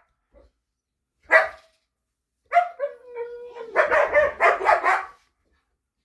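Dog vocalizing: a short yelp, then a drawn-out whine held on one pitch, then a run of about four quick barks.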